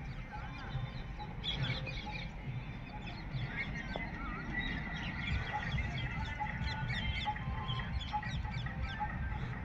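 Many birds calling and chirping at once, short overlapping calls throughout, over a steady low rumble.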